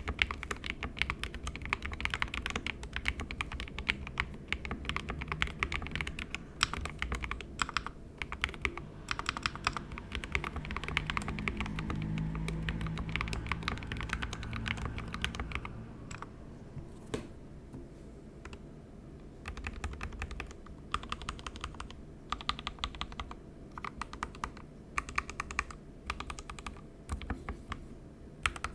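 SK61 mechanical keyboard with lubed 62g Gateron optical red linear switches in an aluminium plate, with stock keycaps, typed on a deskmat. Fast continuous typing gives way, a little past halfway, to sparser groups of presses on the modifier keys.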